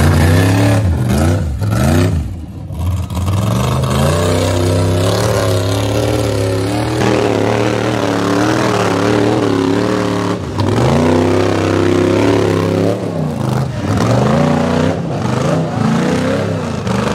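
Rock bouncer buggy engines revving hard, the pitch climbing and falling again and again as the buggies claw up a steep rocky hill.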